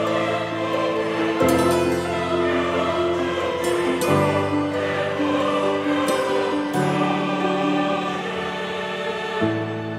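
Background music: slow, held choral chords that change about every two to three seconds.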